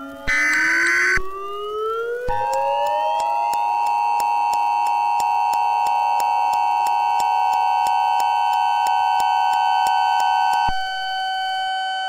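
Recreated Emergency Alert System broadcast tones: the last screeching burst of the digital header data near the start, a siren-like tone rising in pitch, then from about two seconds in the steady two-tone EAS attention signal. Near the end the attention signal gives way to a single lower steady tone.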